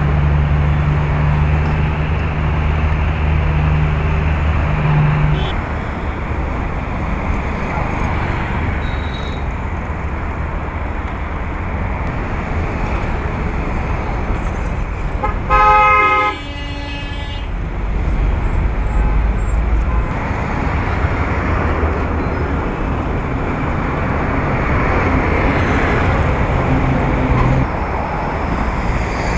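Urban road traffic noise with engines running steadily. A vehicle horn honks once, briefly and louder than everything else, about halfway through.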